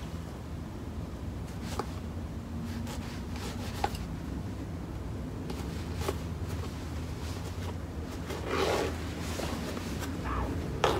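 Hand stitching of a neoprene wetsuit: needle and thread rubbing and scraping through the neoprene, with a few small clicks and a longer rustle of thread being drawn through near the end, over a steady low hum.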